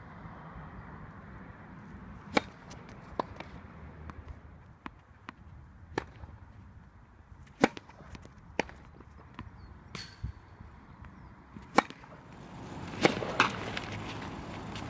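Tennis balls being struck by racket strings in a baseline rally on a hard court, each hit a sharp pop, with quieter pops from the far racket and ball bounces between them. Near the end the background noise grows louder.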